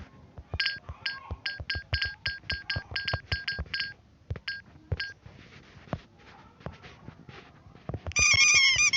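Android phone keyboard typing sound effects: a quick run of short electronic beeps, one per key tap, with faint taps under them. Near the end comes a louder warbling electronic chirp.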